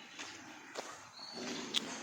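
Pigs moving about in their pen, with scattered soft knocks and one sharp click, and a low grunt starting near the end.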